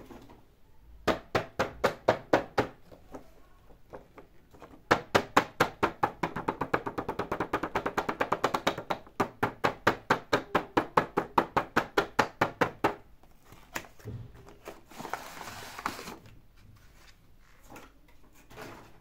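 Fingertips tapping rapidly on a cardboard doll display box, in quick even runs of about five taps a second, the longest lasting about eight seconds. A brief rustle of the box being handled comes near the end.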